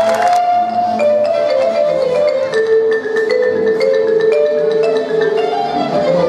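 Small orchestra playing, with marimba notes ringing out over the strings.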